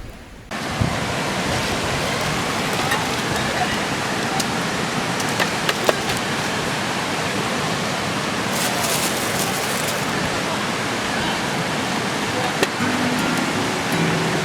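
River water flowing steadily, a constant rushing noise that comes in suddenly about half a second in.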